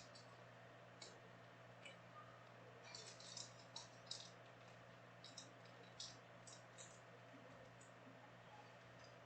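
Near silence with faint scattered clicks and light rustles of trading cards and packs being handled, most of them bunched about three to seven seconds in.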